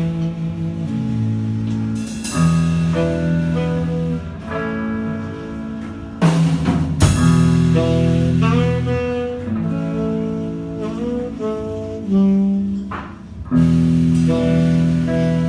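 Jazz improvisation: a saxophone plays a line of changing, held notes over guitar accompaniment, with a loud sharp hit about six seconds in.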